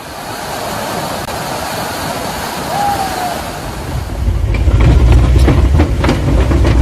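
Steady rushing roar of a waterfall. About four seconds in, a heavy low rumble with scattered knocks grows louder over it.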